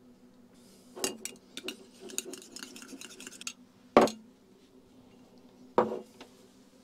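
Light clinks and taps of a glass hot-sauce bottle and a spoon against a small ceramic bowl as hot sauce is shaken into ketchup and stirred, followed by two sharp knocks of ceramic bowls set down on the table, about four seconds in and again near six seconds.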